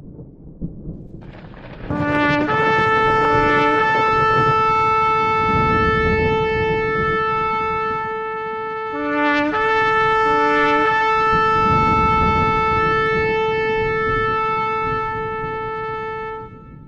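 Shofar blown twice: each call opens with a few short lower notes that step up to a long held note, the first held about five seconds, the second about seven. A low rumble runs underneath.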